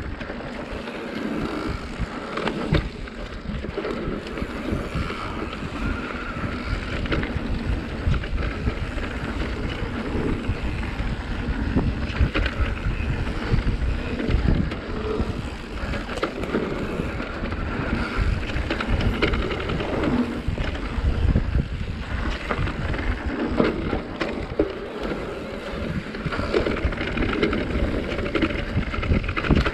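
Mountain bike ridden fast down a dirt singletrack: tyres rumbling on the trail under wind buffeting the microphone, with frequent knocks and rattles from the bike over bumps.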